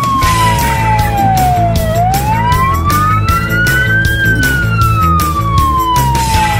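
Fire engine's electronic wail siren, its tone gliding slowly down and then back up, about one cycle every five to six seconds. Background music with a steady beat and a bass line plays under it.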